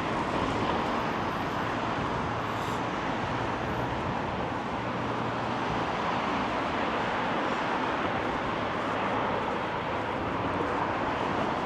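Steady road traffic noise, with a faint engine hum running under it for a few seconds.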